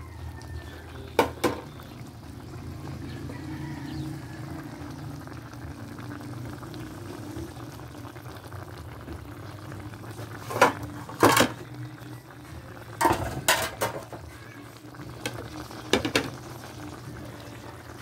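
Chicken curry in coconut milk bubbling steadily in a pot at a simmer. Sharp knocks break in, a couple about a second in and a cluster later on, which are the loudest sounds.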